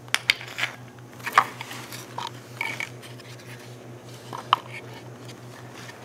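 Scattered clicks, knocks and short scrapes of a badly corroded fuel pump driver module being picked up off a concrete floor and handled, with two sharper knocks, one about a second and a half in and one about four and a half seconds in.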